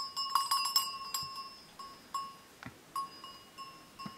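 A small metal bell clanking irregularly: a quick cluster of rings in the first second, then single rings every half second or so, each with the same clear pitch.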